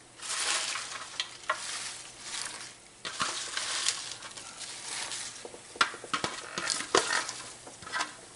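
Baby spinach leaves rustling as they are handled and dropped into a pot of hot water, with the clear plastic tub they come from crackling and clicking several times.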